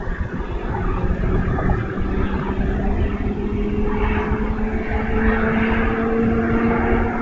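A droning, engine-like hum whose pitch rises slowly and steadily, over a low rumble.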